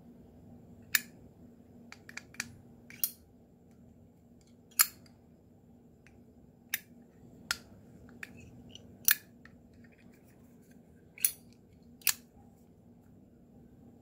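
Lid of a white matte Zippo regular windproof lighter being flicked open and snapped shut over and over: about ten sharp metallic clicks at uneven intervals, some coming in quick pairs.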